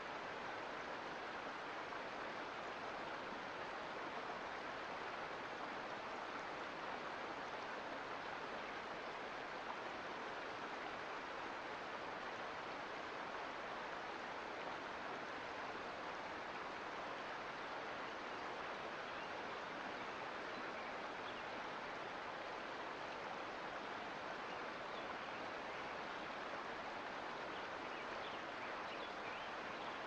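Mountain creek flowing: a steady, even rush of running water.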